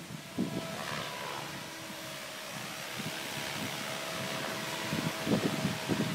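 Electric SAB Goblin 500 radio-controlled helicopter running, its motor and rotor giving a steady whine. Wind buffets the microphone, more strongly near the end.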